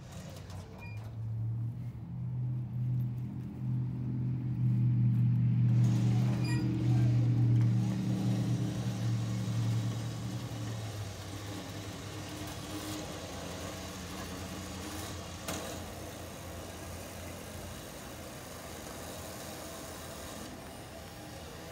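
A motor hums steadily, loudest in the middle, while a wheeled snowcat rolls backwards down steel trailer ramps onto gravel; after about ten seconds the hum dies away and a quieter, even rolling noise remains.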